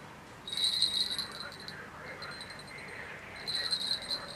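Small bell on a fishing rod jingling in two short bursts, each about a second long, from a fish briefly taking the bait and letting go.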